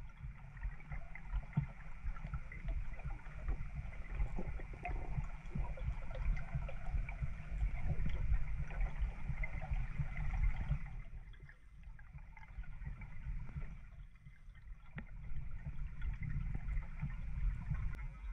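Muffled underwater sound heard through a camera's waterproof housing: a steady low rumble of moving water with scattered faint clicks and crackles, dipping quieter for a few seconds past the middle.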